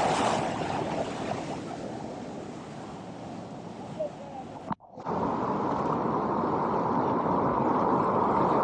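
Whitewater river rapids rushing steadily around a kayak. The rush cuts out abruptly for an instant just under five seconds in, then comes back steady.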